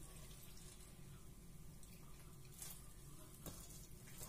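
Grated raw potato being squeezed by hand in a stainless steel bowl to press out its starchy liquid, heard faintly over a low steady hum, with a couple of soft clicks. The whole is close to near silence.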